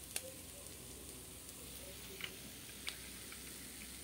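Hot frying oil sizzling faintly in a pan as fried mackerel is lifted out with metal tongs, with three sharp clicks of the tongs, the first the loudest.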